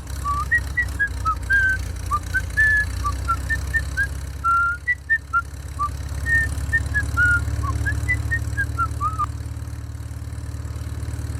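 A whistled tune of short, quick notes that stops about nine seconds in, over a steady low engine-like rumble.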